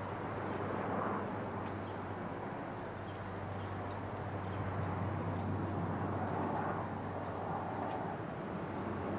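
Outdoor background noise: a steady low hum and rush, like distant traffic, with faint short high chirps every second or two.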